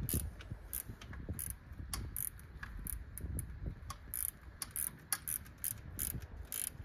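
Socket ratchet wrench clicking in short, irregular strokes as it turns an engine's belt-tension adjusting bolt, with a few metal tool clinks.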